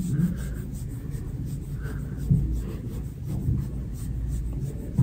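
Concealer being blended onto the skin of the face: soft, repeated scratchy rubbing strokes over a low steady rumble, with a couple of soft low thumps.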